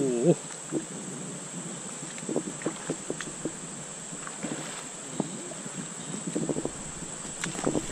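Water sloshing and trickling in a shallow, rocky stream around a wading angler, over a steady high-pitched insect drone. Scattered short, faint wavering calls or voice fragments come and go.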